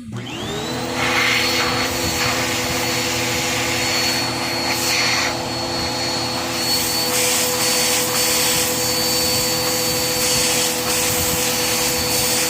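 Vacuum cleaner switched on: its motor spins up with a rising whine over about a second, then runs steadily, drawing air through a LEGO inline-two vacuum engine.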